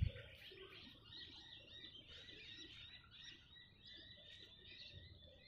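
Near quiet, with faint high chirping of birds in the background throughout.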